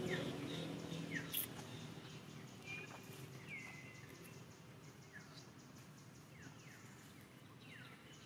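Faint bird calls, each a quick downward-sweeping whistle, repeating every second or two over a quiet outdoor background, with a short sharp click about a second and a half in.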